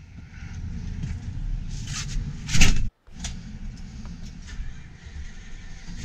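Farm tractor engine running with a steady low rumble, a loud single knock about two and a half seconds in, then a brief dropout and a few light clicks.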